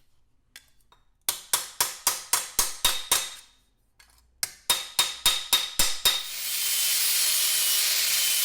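Quick hammer blows on 18-gauge sheet steel, in two runs of about eight or nine strikes, around five a second, each ringing briefly. About six seconds in, a power tool spins up and runs steadily.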